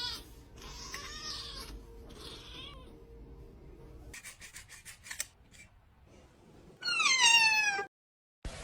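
A cat meows once, a single falling call about a second long, near the end. Before it there are only faint rustles and a few sharp clicks.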